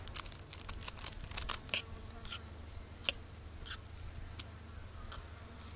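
A metal fork clicking and scraping in a pot of noodles. The clicks come in a quick irregular cluster in the first two seconds, then a few spaced ones, over a low steady rumble.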